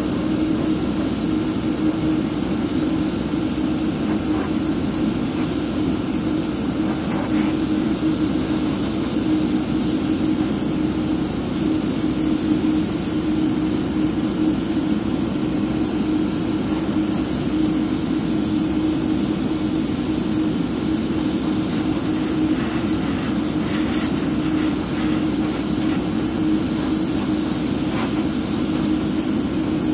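Airbrush setup running while the model's base coat is sprayed: a steady motor hum with an even hiss of air.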